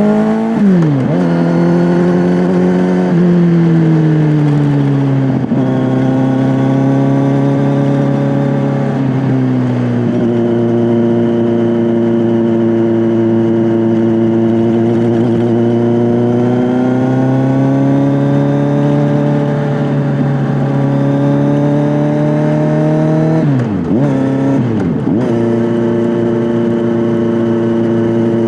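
Kawasaki Z900's inline-four engine through an SC-Project S1 aftermarket exhaust, heard onboard while riding: it pulls up through the revs with several sharp drops in pitch at gear changes early on, runs at a steady, slowly rising speed through the middle, then dips sharply in revs twice near the end.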